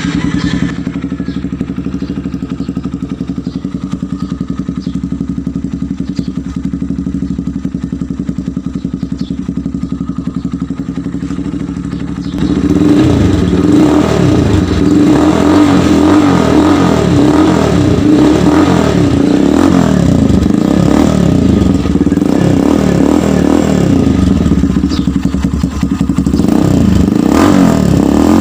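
Motorcycle with a Daeng aftermarket exhaust on the stock elbow pipe, idling steadily. About twelve seconds in it gets louder as the throttle is blipped again and again, the engine note rising and falling with each rev.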